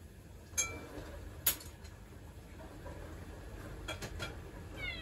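Dishes and utensils clinking at a kitchen sink: two sharp clinks with a short ring in the first second and a half, and a few lighter clicks about four seconds in. A cat starts meowing right at the end.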